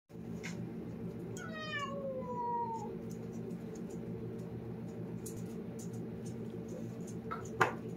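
A domestic cat gives one long meow about a second and a half in, falling in pitch as it goes, over a steady low hum. A sharp knock near the end.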